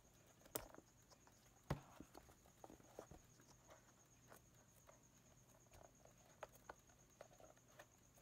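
Light clicks and taps of pens and a stylus being picked up and handled at a desk, with two sharper clicks about half a second and almost two seconds in. A faint steady high tone runs underneath.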